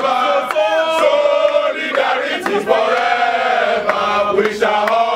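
Crowd of protesters chanting in unison, many voices drawing out sung notes.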